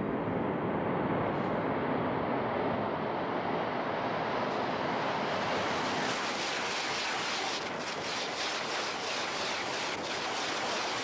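A Tohoku Shinkansen bullet train comes out of a tunnel and passes at high speed with a loud, steady rush of air and running noise. The sound is already loud as the train approaches inside the tunnel and grows brighter and hissier as it emerges and sweeps by. A quick run of sharp ticks from the wheels on the rails comes about eight seconds in.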